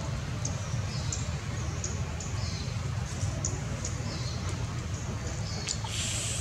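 Short, high-pitched animal chirps repeating every second or so over a steady low rumble, with a brief hiss near the end.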